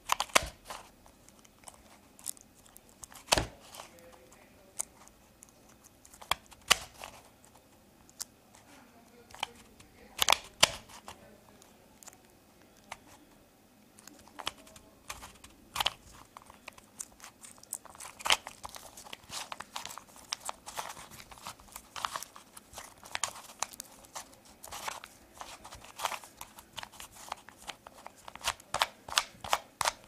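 Homemade Rubik's-style puzzle cube being twisted by hand, its layers clicking and clacking as they turn. The turns are spaced out at first, then come in quicker runs through the second half.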